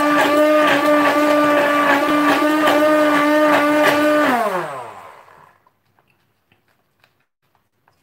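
Electric stick (immersion) hand blender running in a bowl of warm cream, a steady motor whine; about four seconds in it is switched off and winds down with a falling pitch. Only faint clicks and taps follow.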